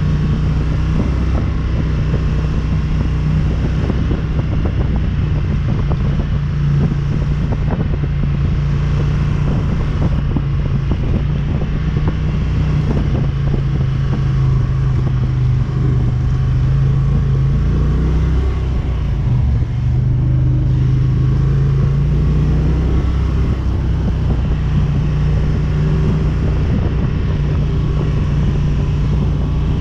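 ATV engine running steadily while under way, with knocking and clatter mixed in. Its pitch shifts and dips briefly about two-thirds of the way through, then steadies again.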